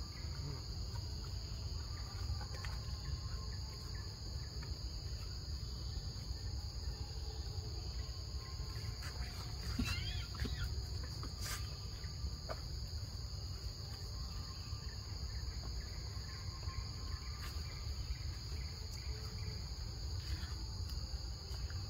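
Steady high-pitched chorus of insects such as crickets or cicadas, with a low rumble underneath. A few brief chirps come about ten seconds in.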